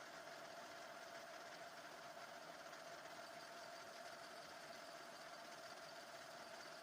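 Faint, steady hum of a lathe running, with a constant whine.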